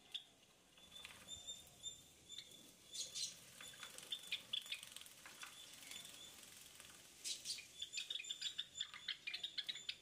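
Java sparrows giving short, high chirps over and over while a bird splashes in a small plastic water bath. The splashing comes as quick patters, thickest in a flurry over the last few seconds.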